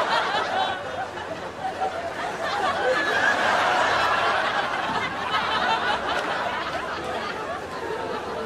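Many voices chattering and laughing at once, a continuous mix of crowd chatter and laughter.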